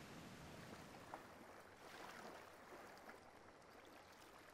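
Near silence: a faint, even hiss with a few small ticks.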